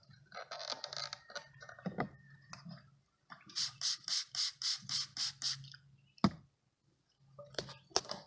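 Scraping and knocking from handling a bee package: a run of about ten quick, even rasps in the middle, then a few sharp knocks near the end.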